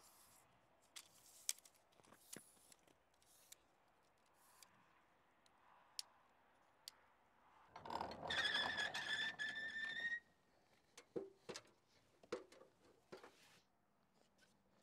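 Wooden barn hayloft door pulled open, its hinges giving a squeal of about two seconds that rises slightly in pitch. Scattered faint clicks and knocks come before and after it as the door is handled and climbed into.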